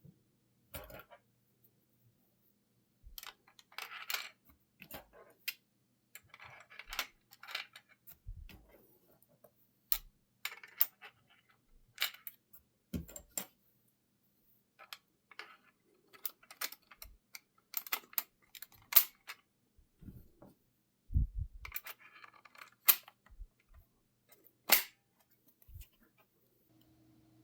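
Hard plastic parts of a 3D-printed crossbow being handled: irregular clicks, rattles and light knocks with short silent gaps, and a few sharper snaps in the second half.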